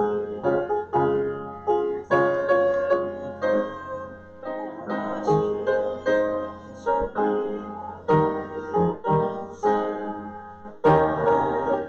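Piano playing a hymn in chords, each chord struck and left to ring and fade before the next.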